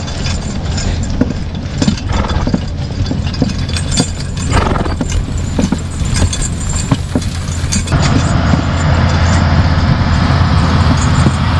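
Draft horses' hooves clopping irregularly as they pull a sled, over the steady low running of heavy tiling equipment's engine, which gets louder about eight seconds in.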